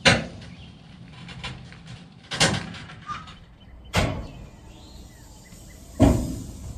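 Four loud thumps about two seconds apart, each sudden and fading over about half a second.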